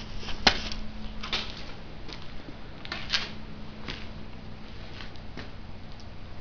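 Handling noise: a few scattered knocks and clunks as the camera is moved about, the sharpest about half a second in, over a faint steady low hum.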